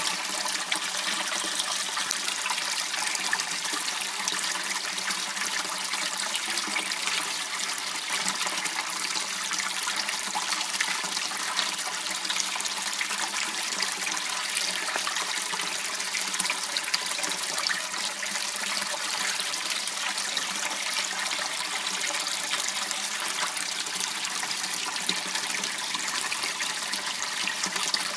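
Water running and trickling steadily in a small canal, an even splashing hiss with no breaks.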